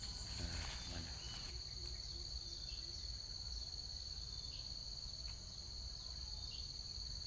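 Steady, high-pitched drone of insects chirring in the trees, over a low rumble.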